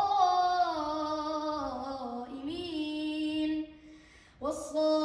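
A young child's voice chanting Quranic recitation unaccompanied, holding a long melodic drawn-out syllable that slowly falls in pitch. After a short pause for breath near the end, the chant starts again.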